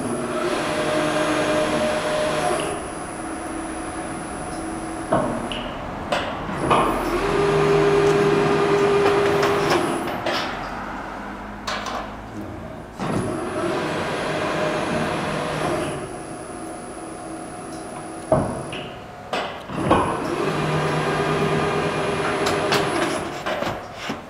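Sheet metal bending machine working through repeated bending cycles: runs of a few seconds with a steady motor whine, about four in all, separated by sharp metallic clunks.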